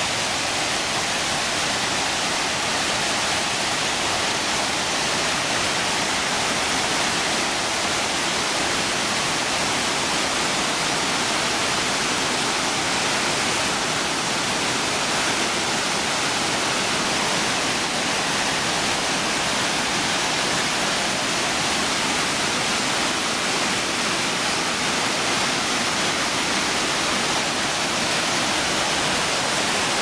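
Gollinger Waterfall's white water pouring down over rock: a steady, unbroken rush of falling water.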